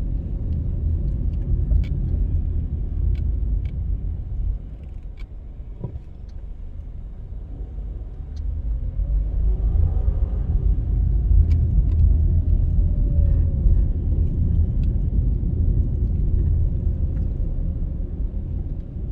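Car driving slowly along a road, a low rumble of engine and road noise. It eases off for a few seconds and then grows louder again near the middle.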